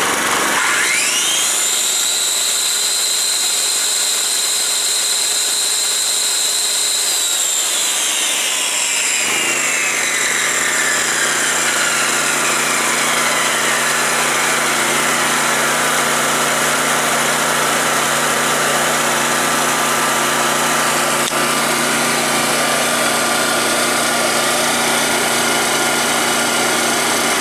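Yamaha EF2800i inverter generator running. A high whine rises sharply at the start, holds for several seconds, then glides slowly down and settles to a steady tone, with a low steady hum coming in partway through.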